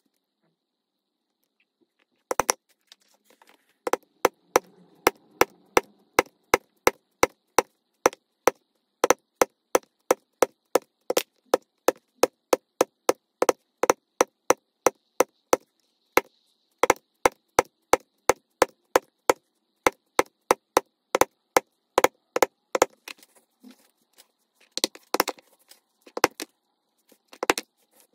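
Mallet striking a leatherworking tool such as a stitching chisel or punch: a single blow, then a long steady series of sharp knocks at about two to three a second, followed by a few scattered ones near the end.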